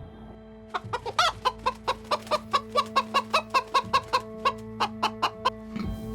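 Chicken clucking in a quick, even run of short calls, about four a second, starting about a second in and stopping about a second before the end.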